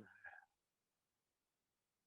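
Near silence: room tone, with only a faint trailing trace of the cue word in the first half second.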